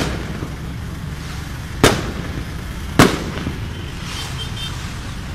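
Three loud, sharp bangs of celebratory firing: one right at the start, one just under two seconds in and one about three seconds in, over a steady low crowd-and-street rumble.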